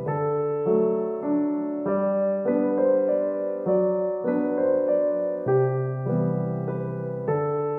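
Background piano music: single sustained notes and chords follow one another at an unhurried, even pace.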